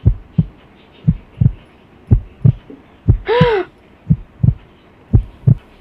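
Heartbeat sound effect: paired low thumps, lub-dub, repeating about once a second. About three seconds in, a short tone rises and falls over a hiss.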